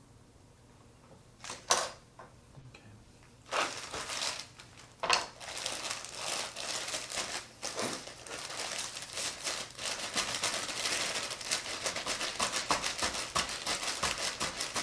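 Plastic packaging crinkling and tearing as it is cut and pulled open. A single sharp click comes just under two seconds in, then dense crackling and rustling of plastic runs on steadily.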